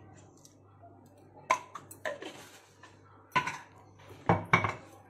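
Kitchen utensils clinking and knocking against dishes: a handful of sharp, separate strikes with a short ring, the loudest two near the end.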